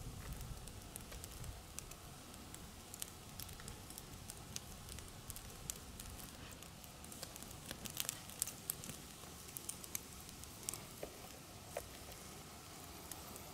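Wood campfire embers crackling, with scattered sharp pops that come thickest and loudest about eight to nine seconds in.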